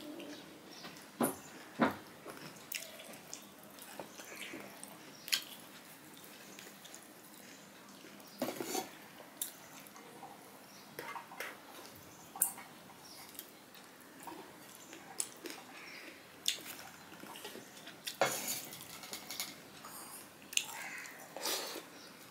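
Close-up eating sounds: wet smacking and chewing of rice and curry eaten by hand, with scattered sharp clicks of fingers and a spoon against steel plates.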